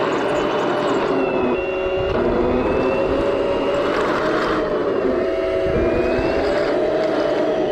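Toy RC tank's electric drive motors and gearbox whining steadily as it drives, the pitch rising and falling a little with speed.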